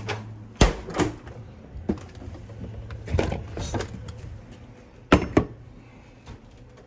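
Beer cans being handled and knocked about: a series of knocks and clunks, coming in three pairs about half a second apart.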